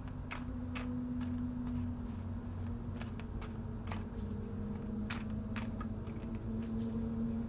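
Ambient background music: a soft drone of steady held tones, with scattered faint clicks throughout.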